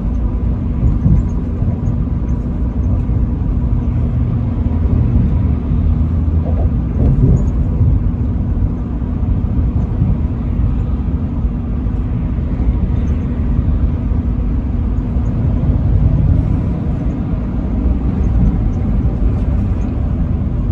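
Truck driving at road speed: steady engine and road rumble with a faint constant hum.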